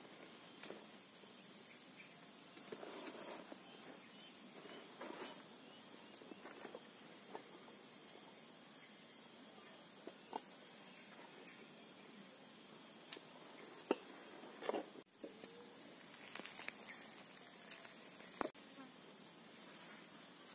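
Steady, high-pitched insect drone of forest crickets or cicadas, with a few soft rustles and sharp clicks from a backpack's straps and buckles being handled, the loudest clicks about two-thirds of the way through and near the end.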